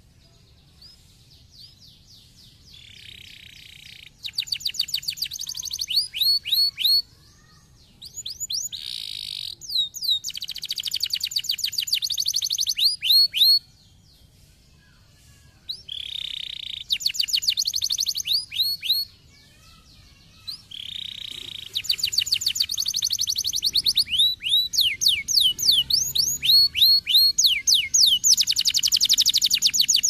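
Domestic canary singing: phrases of rapid rolling trills and quick rising whistled notes a few seconds long, separated by short pauses. From about two-thirds of the way in the song runs on almost without a break.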